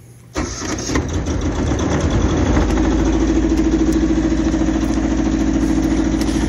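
Two-cylinder Yanmar marine diesel inboard starting at once, about a third of a second in. It builds over a couple of seconds, then runs steadily with an even pulsing beat, an easy start that the owner says it gives every time.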